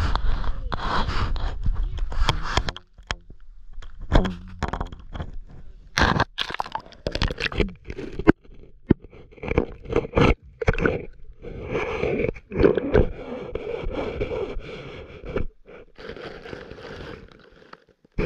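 Handling noise of a GoPro in its case as it is pushed down through a hole in the ice: irregular scraping and sharp knocks. The knocks come thick and fast, with a longer stretch of scraping in the last third.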